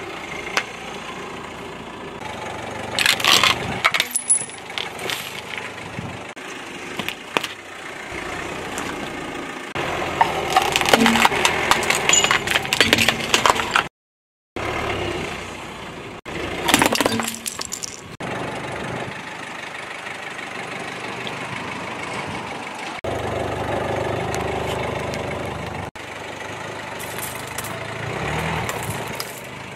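A car tyre rolling slowly over a series of objects and crushing them, giving loud bursts of crunching and cracking over the engine's low steady running. Near the end it runs over a pile of coins, which click and clink.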